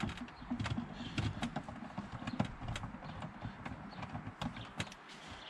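Ratchet wrench on a long extension clicking in quick, uneven runs of sharp clicks as it undoes a centre-console bolt beside the handbrake.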